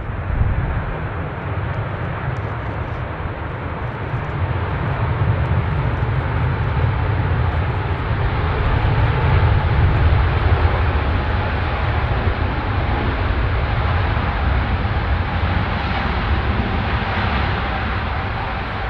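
Jet airliner's engines passing close, a loud, deep rumble with a faint whine that drifts slightly lower, building to a peak about halfway through and easing a little after.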